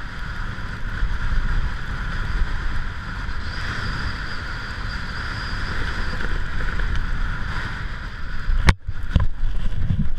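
Strong gusty wind rushing over the microphone in a steady roar of noise. About nine seconds in there is a sharp knock, followed by a few scattered bumps.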